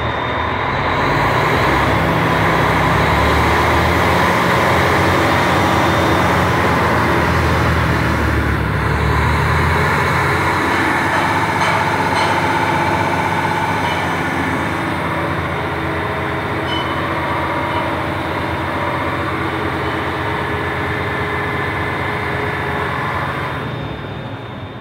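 Mercedes-Benz Axor truck's diesel engine, heard from inside the cab, held at raised revs while parked to bring the coolant up to temperature for a viscous fan clutch check. It runs steady and strong, heavier for about the first ten seconds, and drops away near the end.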